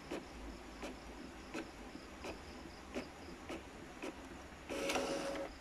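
Epson L3110 inkjet printer printing, its print head shuttling back and forth with a light tick at each pass, about every 0.7 s. Near the end a louder whirr as the feed rollers push the finished last page out.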